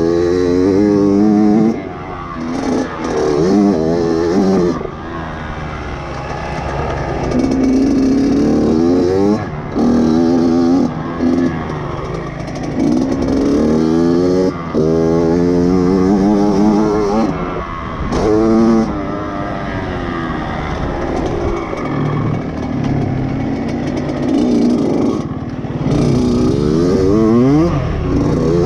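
Dirt bike engine heard from on board while riding a motocross track, its pitch climbing and falling over and over as the throttle is opened and closed.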